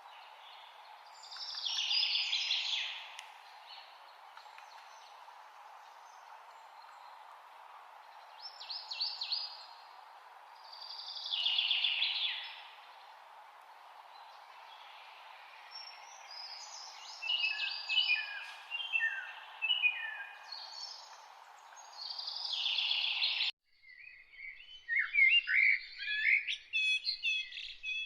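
Songbirds singing in short, separate phrases over a steady background hiss. Near the end the hiss cuts off abruptly, an edit in the recording, and a busier, faster run of chirps follows.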